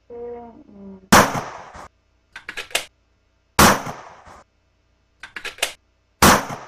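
Gunshot sound effect fired three times, about two and a half seconds apart, each bang followed a second later by a quick run of three or four clicks.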